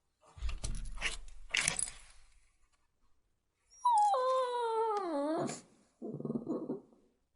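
Shih Tzu puppy whining. After a couple of seconds of breathy snuffling noises, it gives one long whine about four seconds in that falls steadily in pitch, then a short low grumble.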